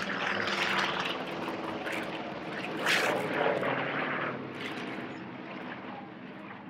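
The two Pratt & Whitney R-2000 radial piston engines and propellers of a de Havilland Canada DHC-4 Caribou droning as it banks overhead. The sound is loudest about three seconds in, then fades toward the end.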